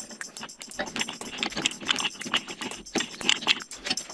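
Ratcheting pipe threader turning a die onto black steel pipe: a rapid, irregular run of ratchet clicks.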